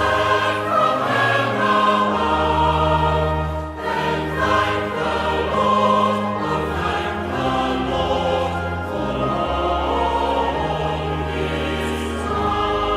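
A choir singing a hymn with instrumental accompaniment, which holds long, steady bass notes that change every second or two.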